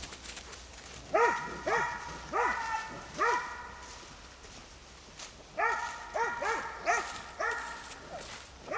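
Old English Sheepdog barking repeatedly: four barks spaced under a second apart, a short pause, then a quicker run of about five more.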